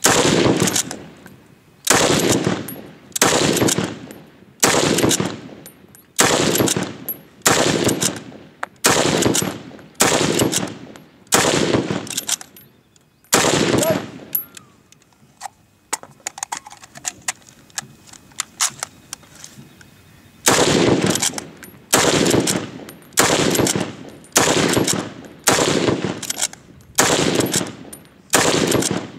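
Lee-Enfield-pattern bolt-action rifle fired rapidly, one sharp shot with an echoing tail about every second and a quarter. After about eleven shots a pause of roughly seven seconds holds only faint clicks, then a second string of eight or so shots follows at the same pace.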